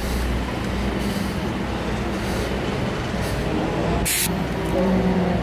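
Steady low engine drone, with a brief hiss about four seconds in.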